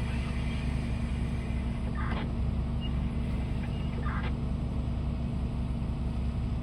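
Large diesel engines of heavy mining machinery, the Komatsu PC2000 excavator and HD785 haul trucks, running steadily with a low, even drone. Two short, higher rasping sounds come about two and four seconds in.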